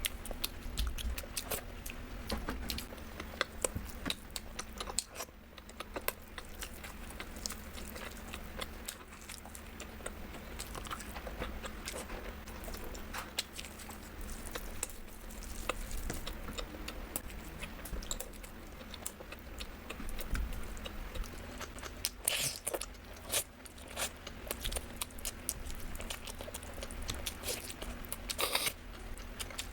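Close-miked mukbang eating sounds: biting and chewing with many small wet clicks and crunches. There are two louder crunchy bursts, one about two-thirds of the way through and one near the end.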